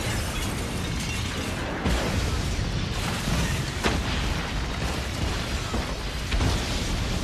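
Film sound of a train exploding: a continuous rumbling blast with sudden harder bangs about two, four and six seconds in, and debris crashing.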